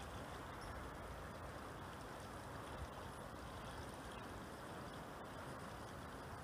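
Faint, steady outdoor noise of wind over a lake, with water lapping and rippling.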